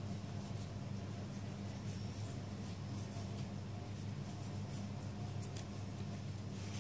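Cut (chisel-tip) marker drawn across lined notebook paper in short, irregular strokes while writing calligraphy letters, over a steady low hum.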